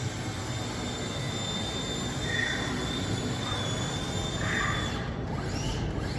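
Steady workshop machinery noise with a thin, unchanging high whine, likely power tools working the logs, and two brief faint squeaks about two seconds apart.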